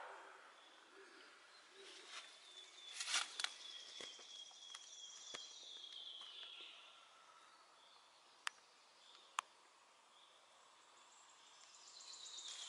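Quiet outdoor ambience with faint birds or insects: a thin high whistle held for about three seconds, two sharp clicks about a second apart past the middle, and a quick high trill growing near the end.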